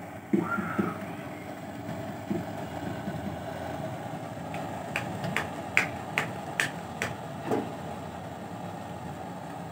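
Steady kitchen hum with a few soft knocks near the start and a run of about six sharp clicks about five to seven seconds in, then one dull knock.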